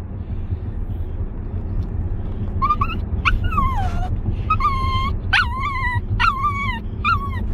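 Yorkiepoo dog whining and yipping in a string of high, falling cries that begins about three seconds in, one of them a longer drawn-out whine. It is unhappy in its new car seat. Steady car road rumble runs underneath.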